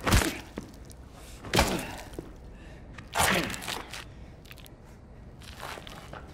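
Four heavy blows of a spade landing on a person lying on the floor, evenly spaced at about a second and a half apart, each a hard thud with a short falling swish after it; the last blow is softer.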